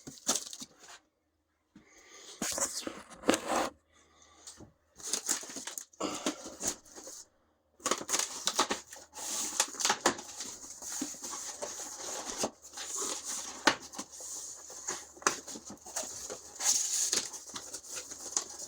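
Packaging rustling and crinkling as firework boxes are handled: separate bursts with short pauses at first, then nearly continuous from about eight seconds in.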